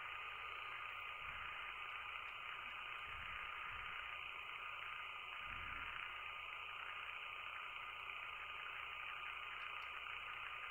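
Quiet, steady background hiss with a faint constant high hum: room tone, with no distinct event standing out.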